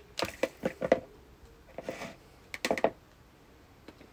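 A lemon being zested on a handheld rasp grater: three short runs of quick, scratchy clicking strokes, with short pauses between them.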